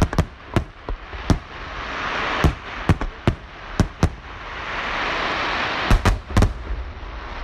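Aerial firework shells bursting in a volley: a dozen or so sharp bangs in irregular clusters over a steady crackling hiss of burning stars, which swells twice.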